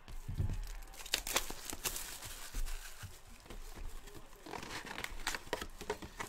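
Plastic shrink wrap crinkling and tearing as it is stripped off a cardboard box of trading cards, in a run of short, irregular crackles, with the box lid opened near the end.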